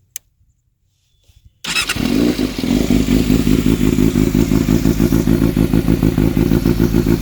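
A Yamaha YZF600R's inline-four engine, breathing through a Delkevic 8-inch shorty exhaust, starting up. After a faint click and a pause it catches suddenly about one and a half seconds in, then settles into a loud idle with an even, pulsing beat.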